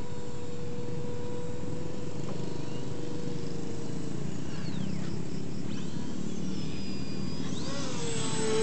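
Electric motor and propeller of an RC foam airplane whining in flight: a steady tone that slides down in pitch about four seconds in, then wavers up and down near the end as the plane turns and the throttle changes.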